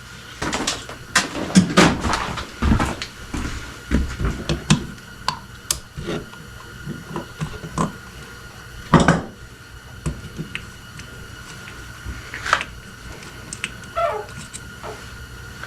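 Clicks, taps and clatter of small metal carburetor parts and hand tools being handled on a workbench while the carburetor is taken apart, busy at first and then sparser, with a louder knock about nine seconds in and another about twelve seconds in.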